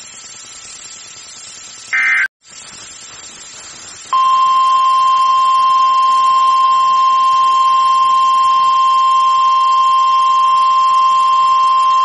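NOAA Weather Radio warning alarm tone: one steady high-pitched beep that starts about four seconds in and holds for about nine seconds before cutting off. It comes before a tornado warning and is preceded by low hiss and a brief squawk of alert data tones about two seconds in.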